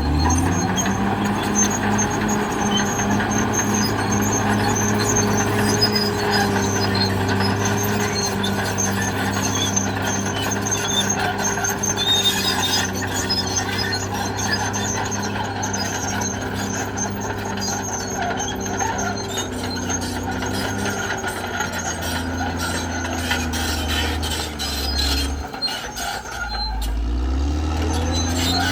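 Caterpillar D6R XL crawler bulldozer working: its diesel engine runs steadily under load while the steel tracks squeal and grind. Near the end the engine note drops briefly, then rises again.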